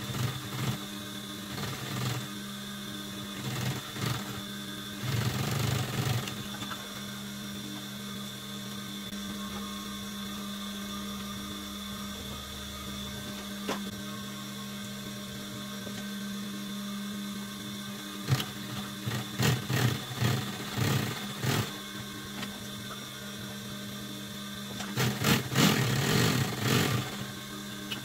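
Industrial sewing machine, its motor humming steadily, with several short runs of stitching, the longest near the end, as a leather pocket is sewn onto denim.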